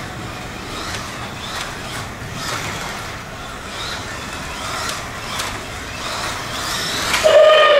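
Scalextric Aston Martin DBS slot car's 18,000 RPM motor whining as it laps the track, the pitch rising and falling with the throttle through the bends. Near the end the car comes past close by, suddenly louder, with a pitch that slides down.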